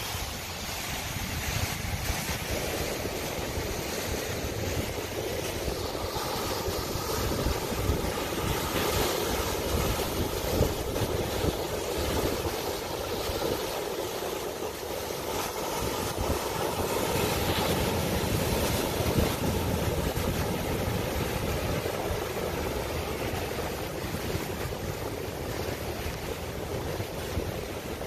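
Ocean surf breaking and washing over lava rock ledges: a continuous rush that swells and eases as waves come in, with wind buffeting the microphone.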